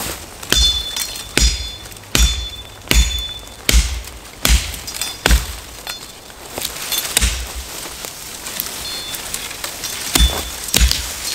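Machete chopping into saplings and brush: a steady run of sharp chops, a little over one a second, for the first five seconds. Then a lull, and two more chops near the end.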